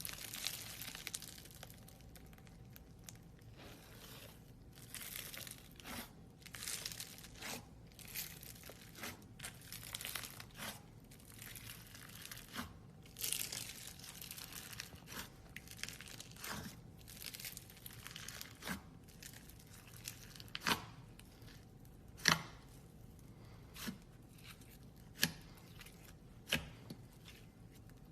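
Crackling and tearing noises in short repeated bursts, giving way in the later part to sharp single pops about every second and a half.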